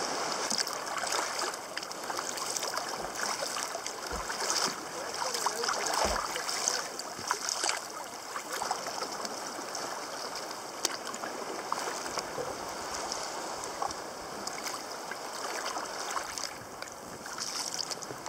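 Water splashing and dripping around a sea kayak as it is paddled, with a couple of low knocks about four and six seconds in.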